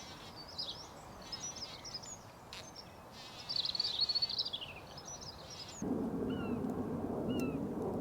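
Songbirds singing in quick, high chirps and trills. About three-quarters of the way through, a louder steady low rumble starts suddenly, and two short falling whistled calls sound over it.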